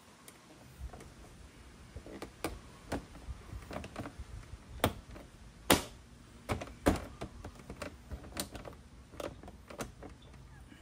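Plastic body panel of a Yamaha TMax 500 scooter being worked by hand at its clips: an irregular series of clicks, snaps and knocks as the tabs catch and the plastic flexes against the frame, the loudest few near the middle.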